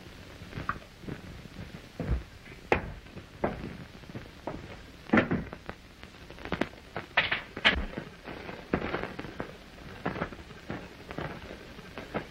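Irregular clicks and knocks of a rifle being handled and looked over, about one or two a second, some sharper than others.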